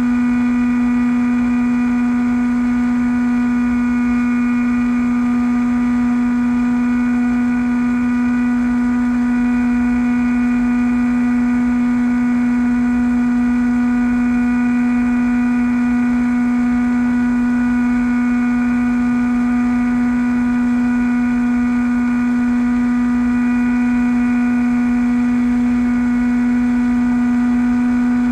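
Bixler v1.1 model plane's electric pusher motor and propeller running at a steady, unchanging pitch, with wind rush underneath, as heard from a camera mounted on the plane.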